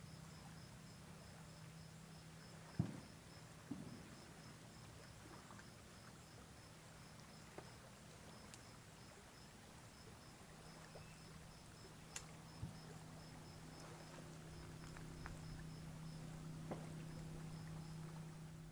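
A cricket chirping faintly in an even, high-pitched pulse of about four to five chirps a second, with a few short pauses, over a steady low hum. Two soft knocks come about three and four seconds in.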